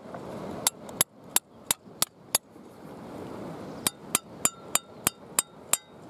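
Hammer striking a steel piton to drive it into a crack in a concrete breakwater, sharp metal-on-metal blows about three a second. There are six strikes, a pause, then a run of about eight more near the end, in which each strike leaves a short ringing tone.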